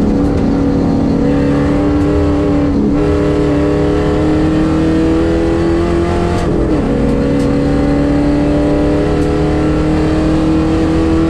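Holden Commodore V8 Supercar replica's engine pulling hard under acceleration, heard from inside the cabin. The pitch climbs steadily and drops briefly at a gear change about six and a half seconds in, then climbs again.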